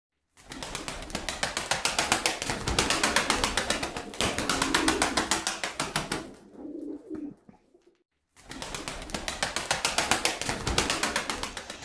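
Pigeon wings flapping hard in a fast run of wing claps, several a second, in stretches broken by a short silence about two-thirds of the way through. A brief low coo is heard around the middle.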